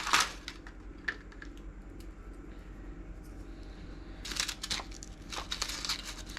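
Crinkling and rustling of small plastic items being handled, in short bursts at the start and again from about four to six seconds in, over a faint steady hum.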